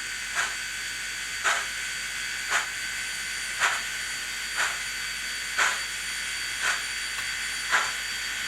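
ESU LokSound 5 sound decoder in an HO scale Heisler steam locomotive model, playing steam engine sound through its small onboard speaker: slow, even chuffs about once a second over a steady hiss of steam.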